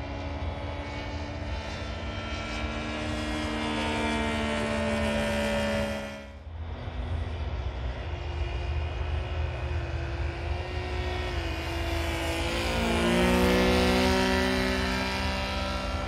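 Saito FG-33R3 33cc three-cylinder four-stroke gasoline radial engine on a radio-controlled Stearman biplane, running steadily in flight with its pitch slowly drifting. The sound drops out briefly about six seconds in, then grows loudest about two-thirds of the way through as the plane comes nearer, its pitch shifting as it passes.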